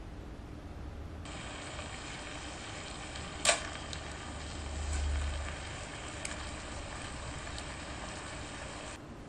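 Low, steady room noise with a single sharp click about three and a half seconds in and a brief low rumble about five seconds in.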